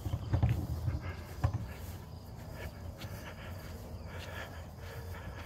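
A wheelbarrow pushed across a lawn: low rumbling and irregular bumps from the wheel and the footsteps of the person pushing it, heaviest in the first second and a half, then a steadier rumble.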